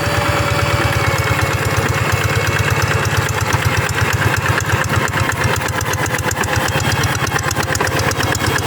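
Two-wheel rice-field tractor's diesel engine running steadily with a fast, even chugging beat.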